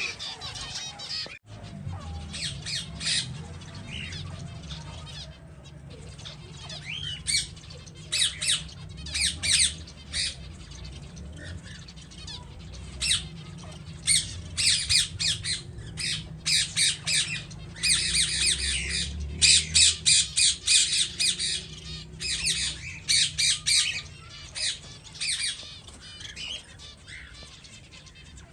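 A flock of captive finches calling: many short, rapid chirps in clusters that grow busiest in the second half, over a steady low hum.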